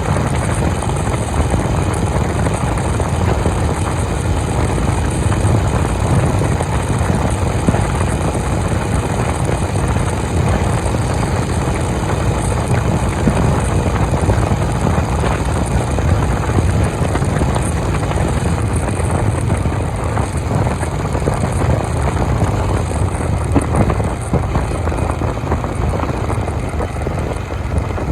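Honda CB350 motorcycle running at a steady highway cruise, its engine note mixed with a heavy rush of wind and road noise.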